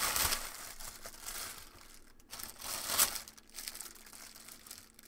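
Thin plastic wrapper crinkling as it is handled and pulled open. It is loudest at the start, with a sharp crackle about three seconds in.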